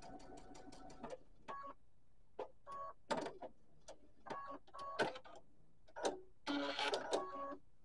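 Sewing machine stitching a seam in short runs: a quick train of needle clicks in the first second, then scattered clicks and brief bursts of stitching, with a longer run near the end.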